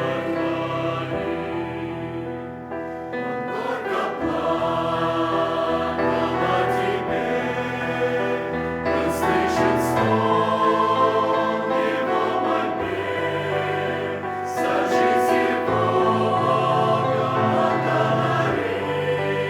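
Church choir singing a Russian-language hymn in held chords, swelling louder twice.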